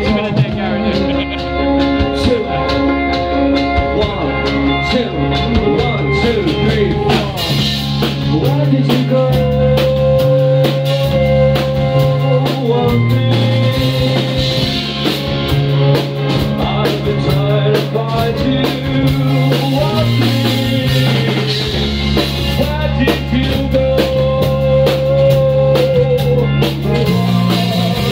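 Live band playing a song on drum kit, electric guitar and keyboard, over steady low sustained notes. A man sings in long, wavering held notes about a third of the way in and again near the end.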